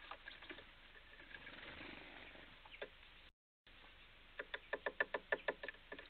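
Small birds pecking and tapping at the seed feeders: scattered clicks, then a quick run of sharp taps, about ten a second, near the end. A little past the middle the audio drops out to silence for a moment.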